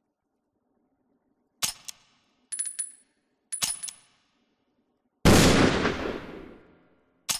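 Taurus Raging Bull revolver: three short sets of sharp metallic clicks and clinks from the gun's action, then one loud shot with a long ringing decay of nearly two seconds, and another sharp click near the end.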